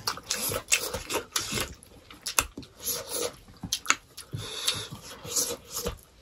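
Close-miked eating sounds: chewing and wet mouth smacks, with fingers scraping rice across a steel plate. A run of short, irregular clicks and smacks.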